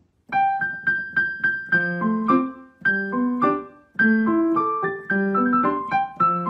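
Background piano music: a light, bouncy melody of struck notes over lower chords, starting about a third of a second in.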